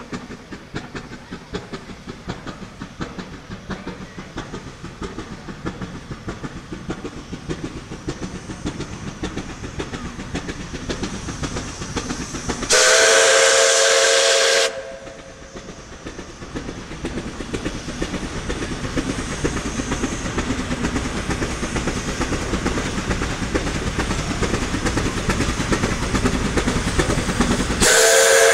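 Narrow-gauge steam locomotive working towards the listener, its exhaust beats growing steadily louder. About halfway through it sounds its steam whistle once for about two seconds, and it starts a second blast just before the end.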